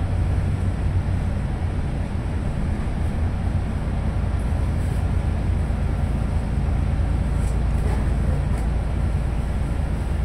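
Steady low rumble of engine and road noise inside a large vehicle cruising at expressway speed, with a few faint light rattles.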